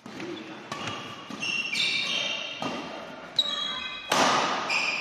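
Badminton doubles rally: sharp racket strikes on the shuttlecock about once a second, the loudest about four seconds in, with shoe soles squeaking briefly on the court mat, echoing in a large hall.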